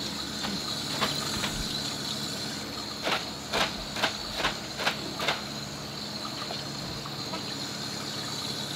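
Steady hiss of aquarium water and filtration. A few seconds in, a quick run of about seven sharp clicks or taps comes roughly two to three a second.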